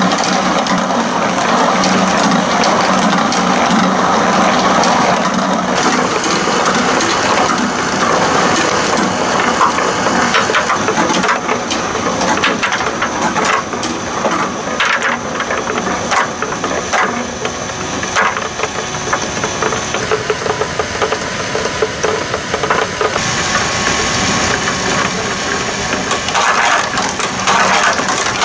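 Plastic balls rolling and clattering through a plastic toy marble run, over the steady hum of the course's small battery motors driving the spinning bucket, escalator and flowing pool.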